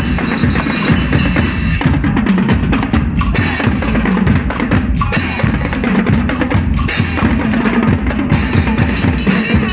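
A group of marching drummers playing large drums with sticks, a steady driving rhythm with deep bass-drum beats under it.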